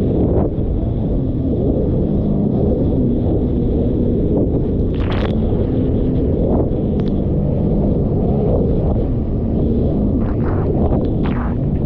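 Jet ski engine running under way through choppy storm waves, heavy with wind rumble on the microphone. Its note shifts slightly, and brief splashes of spray and water hitting come through a few times.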